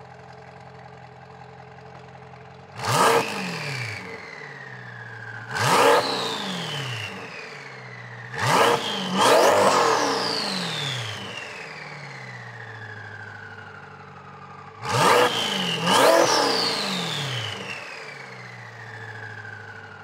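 Twin-turbocharged C8 Corvette's 6.2-litre LT2 V8 idling through its exhaust, then revved in sharp blips: single blips about 3 and 6 seconds in and quick double blips about 9 and 15 seconds in. After each blip a high whine falls away slowly as the turbos spin down.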